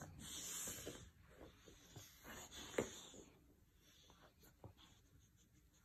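Puppy chewing a red kitchen mitt: faint breathy snuffling and soft scratchy rubbing and gnawing, with one sharp click a little before the middle.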